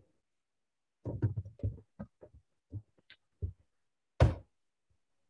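A run of short, dull taps and clicks from computer keyboard and mouse use while a query is pasted and run. A sharper, louder click comes about four seconds in.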